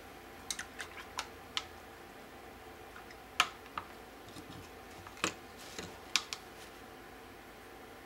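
Light clicks and knocks of painting supplies being handled on a tabletop. A quick run of about five clicks comes in the first second and a half, then a few scattered sharper knocks, the loudest about three and a half seconds in.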